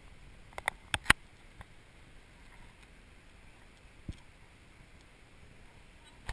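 A few sharp clicks close together about a second in, the last one the loudest, then a single soft knock near the middle, over faint steady background hiss.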